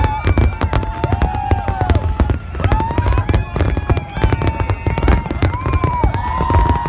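Dense fireworks barrage: rapid bangs and crackling with no break, with several high whistles wavering and gliding over it.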